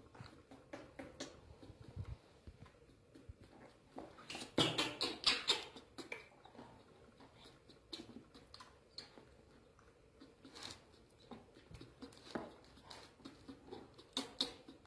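Baby macaques' faint squeaks and scuffling, with many small taps and clicks from their moving about and being handled, and a short louder cluster of sounds about four and a half seconds in.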